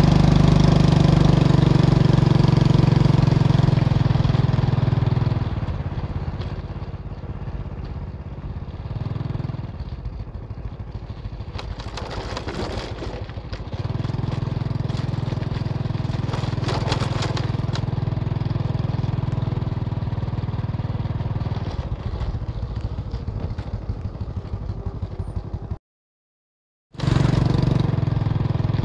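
Small motorbike engine running steadily under way. It gets quieter about five seconds in and louder again about fourteen seconds in, and all sound cuts out for about a second near the end.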